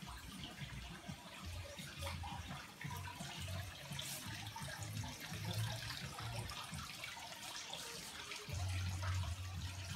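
Faint steady splashing of running water, with a low rumble on the microphone that grows loudest near the end.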